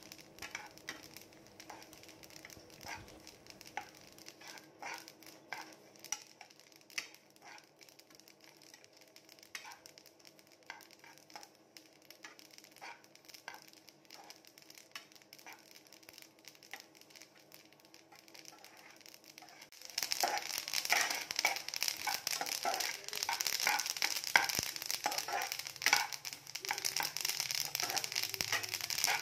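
White sesame seeds dry-roasting in a steel pan on a low flame, stirred with a steel spoon: scattered light scrapes and ticks at first, then, about two-thirds of the way through, a sudden change to dense, louder crackling and scraping as the seeds are turned.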